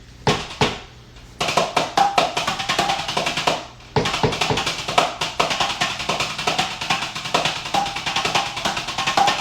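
Background music with a fast, busy percussion beat of drum and wood-block-like hits, which drops out briefly twice near the start and again about four seconds in.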